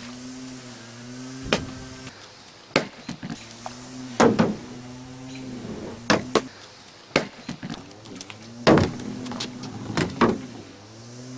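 Background music with a low, slowly bending drone, broken by a series of sharp knocks from a drink bottle being flipped and landing on hard surfaces.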